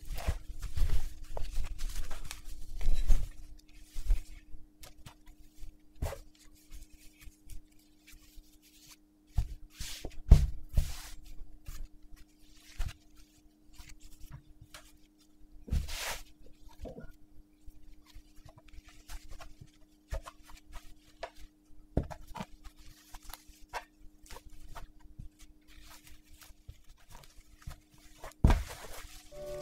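Cloth napkin being folded and smoothed by hand on a tablecloth: irregular soft rustles and brushes of fabric with scattered light taps, over a faint steady hum.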